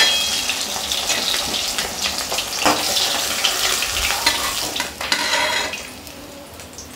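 Rohu fish steaks sizzling and crackling in hot oil in an aluminium kadai, with scattered clicks and scrapes of a metal spatula as the pieces are lifted out. The sizzle dies down about six seconds in, once the pan is empty of fish.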